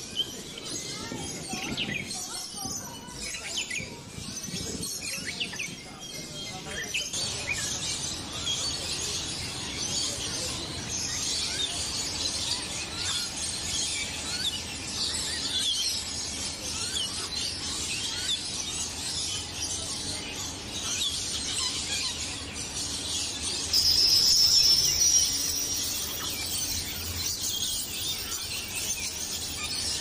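A busy chorus of birds chirping and twittering in quick, high calls. Near the end one louder, high, slightly rising whistled call lasts about a second and a half.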